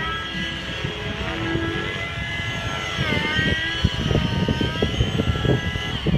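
Nitro-fuelled RC helicopter flying low: its glow engine and rotor give a steady pitched whine whose pitch dips and comes back about three seconds in, with uneven low rumbling underneath in the second half as it comes down near the pad.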